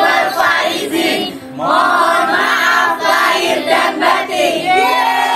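A large group of adults and children calling out together in unison, many voices at once, in two phrases with a short pause about a second and a half in.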